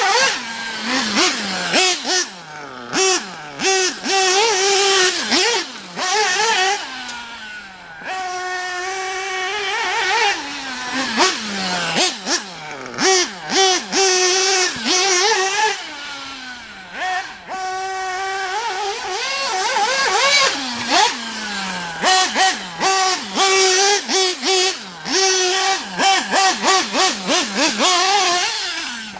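Nitro RC car's Alpha Plus Pro Spec .21 glow engine with a tuned pipe, driven hard through laps. The engine screams up in pitch and holds high on the straights, then drops in falling glides and short throttle blips each time it lets off.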